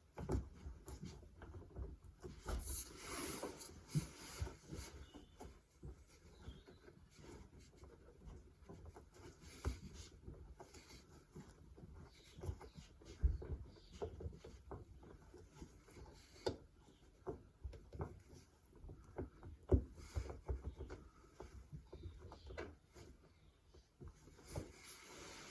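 Faint handling noises of dishwasher parts being worked on by hand: scattered light clicks, taps and rubbing, with a few sharper knocks.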